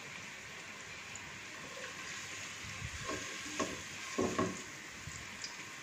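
Minced garlic and ginger sizzling in hot oil in a nonstick pot, a steady hiss. Around the middle, a silicone spatula stirs them with a few knocks and scrapes against the pan.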